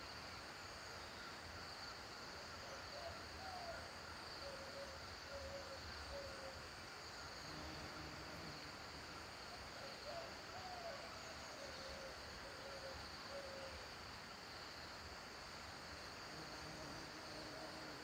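A bird calling in low hoots: a rising note followed by a run of shorter, lower notes, heard twice, over a steady high insect-like hum.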